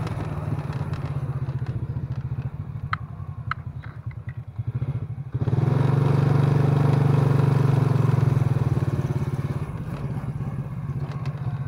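Motorcycle engine running on the move: it eases off about four seconds in, then is throttled up sharply and held louder for several seconds before easing again near the end. A few sharp rattling clicks come about three seconds in.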